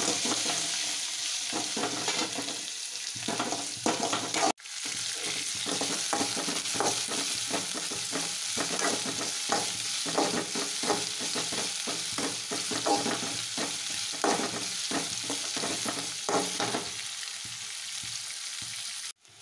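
Sliced onions sizzling in hot oil in an aluminium kadai, being sautéed toward golden brown, with a metal spatula scraping and tapping the pan over and over as they are stirred. The sound drops out briefly about four and a half seconds in.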